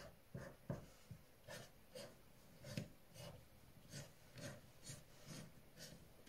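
Faint scratching of a coloured pencil on paper, drawn in short quick strokes, about two a second.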